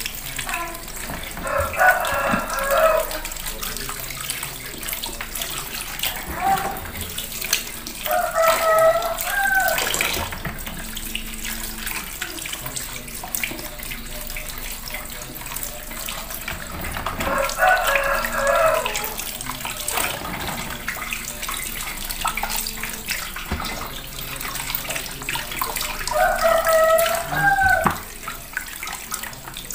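Tap water running and splashing over peeled cassava pieces as they are rubbed clean by hand in a plastic colander in a sink. A rooster crows four times, about every nine seconds, louder than the water.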